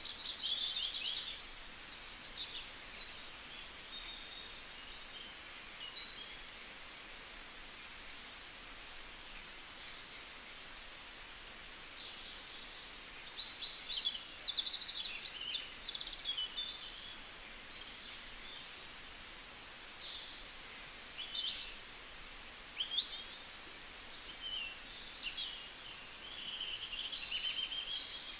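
Many small birds chirping and twittering: short high calls and quick trills, overlapping and coming and going, over a steady hiss.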